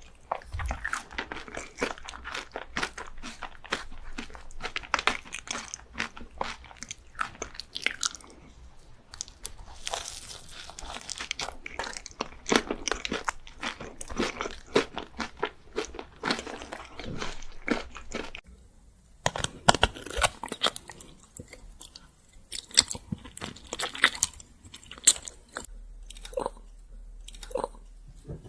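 Close-miked eating: crunchy bites and chewing in quick, dense crackles, with a short pause a little past the middle before the crunching resumes.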